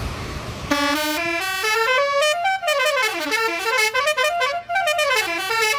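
Indonesian 'telolet' bus horn (a basuri multi-tone air horn) playing a melody of short held notes that step up and down, starting about a second in after a brief rush of noise.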